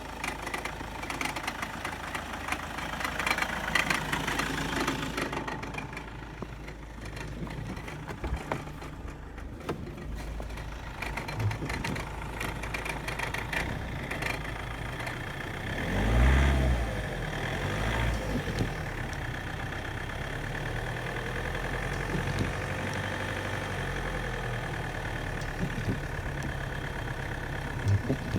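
Diesel engine of a 2004 Toyota Avensis idling, with a repeating metallic ding-ding that the owner suspects comes from the timing-belt tensioner pulley or another belt pulley, and that fades at higher revs. About halfway through there is one brief, louder swell in the engine sound.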